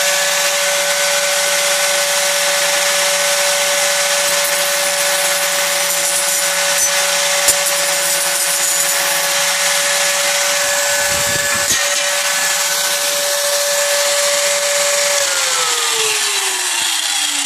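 Electric cut-off saw motor, converted into a blade grinder, running at steady speed with a constant whine and hiss. Near the end it is switched off and its pitch falls as it spins down.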